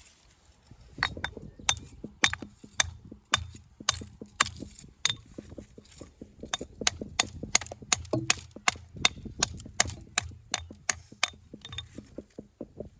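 A hammer striking stone over and over, sharp ringing knocks about two a second with dull thuds beneath them, as stone is trimmed or knocked into place.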